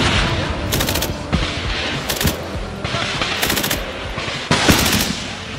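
Automatic gunfire in short bursts, four bursts about a second apart.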